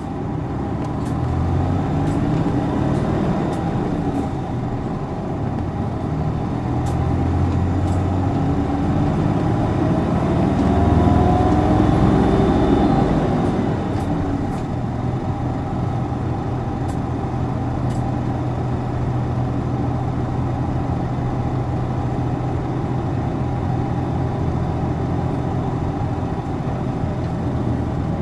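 Isuzu Erga city bus's diesel engine heard from inside the cabin, revved hard with its pitch climbing again and again as it pulls through the gears, loudest just before the middle. It then settles into a steady drone for the second half as the bus cruises.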